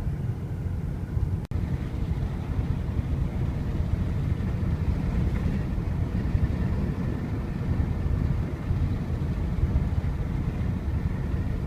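Steady low rumble of road and engine noise inside a moving vehicle's cabin, breaking off for an instant about one and a half seconds in.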